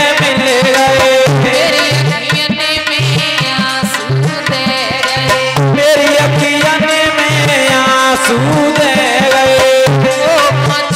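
Indian devotional folk music played loudly: a hand drum keeps a steady beat under a wavering melody line.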